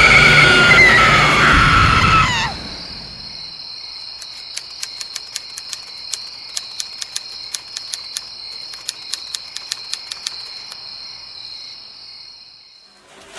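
A loud, high pitched sound that rises at first and falls away as it cuts off about two and a half seconds in. Then crickets chirping: a steady high trill with irregular clicks, fading near the end.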